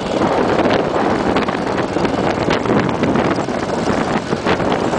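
Cagiva W16 motorcycle's single-cylinder engine running under way on a gravel dirt road, largely masked by heavy wind noise on the microphone. Scattered short clicks and knocks come through from the rough surface.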